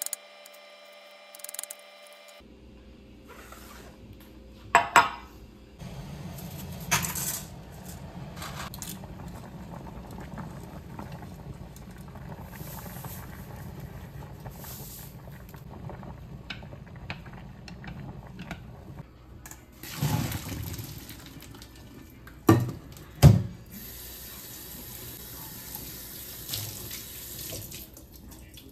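Kitchen sounds of cooking noodles. A few knife taps on a cutting board, then a steady low hum while water boils in a saucepan, and two sharp clanks of a steel pot. Near the end a tap runs into a stainless steel sink as cooked noodles are rinsed in a mesh strainer.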